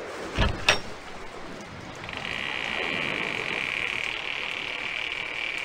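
Door sound effect: a latch clunks and clicks open, then from about two seconds in the door creaks open on its hinges in one long, steady creak.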